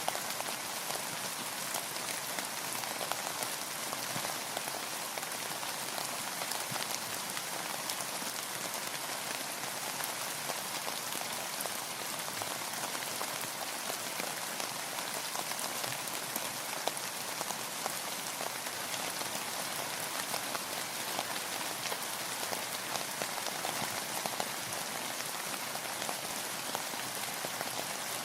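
Steady rain falling on a surface, a dense even hiss made of many fine drop ticks that keeps up without pause.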